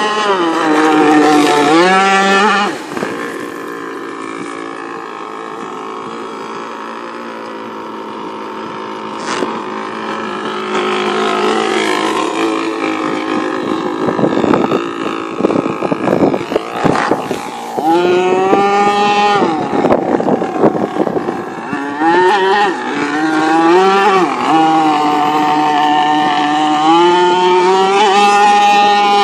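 Radio-controlled speedboat's motor running at high revs. Its pitched whine is loud and wavers up and down near the start and again through the last third, and drops to a quieter, steadier drone for several seconds in between.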